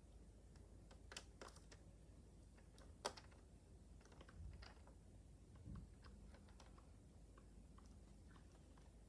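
Faint, scattered small clicks and taps of a precision screwdriver and screws against a laptop's plastic casing as screws are taken out, the sharpest click about three seconds in and a soft thump a little before six seconds.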